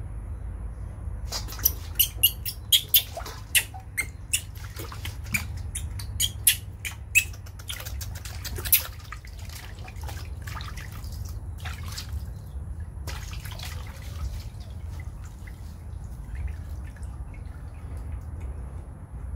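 Water splashing and dripping in a steel basin as a baby monkey is washed by hand. A quick run of sharp splashes comes from about two to nine seconds in, then a softer wash of water around thirteen seconds, over a steady low hum.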